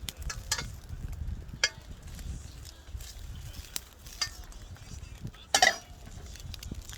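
Scattered sharp metallic clinks and scrapes of a metal utensil against a wok or dish, the loudest a ringing clink about five and a half seconds in, over a low rumble.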